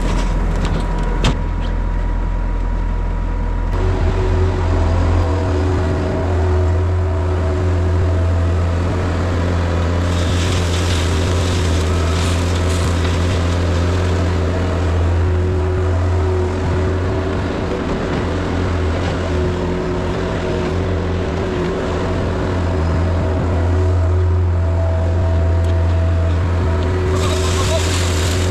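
Skid steer's diesel engine running steadily. A louder hissing rush comes in about ten seconds in for several seconds, and again near the end.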